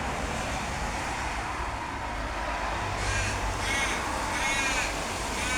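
Crow cawing, three or four harsh caws in the second half, over a steady background hiss.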